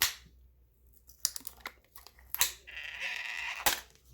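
Hard plastic parts of a Clover Flex handheld payment terminal being pried apart: several sharp clicks and snaps, with a scratchy, squeaky scrape shortly before the last snap near the end.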